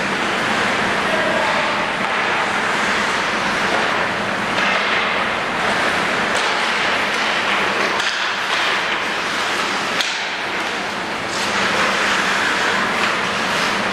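Steady background noise of an ice rink during a hockey game, with a single sharp hit about ten seconds in as play comes toward the net.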